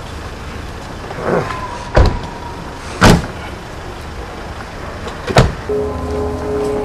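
Car doors slamming shut on a hatchback, three sharp bangs a second or two apart. Near the end, background music with held notes comes in.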